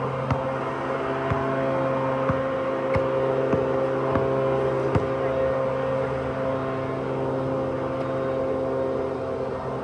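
Basketball bounced on an outdoor asphalt court in sharp thuds, one every second or so, most of them in the first half. Under them runs a steady machine hum that holds one pitch.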